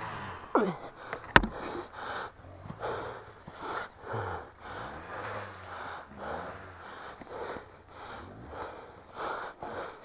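A person breathing hard and fast, panting from exertion with one or two heavy breaths a second. There is a single sharp knock about a second and a half in.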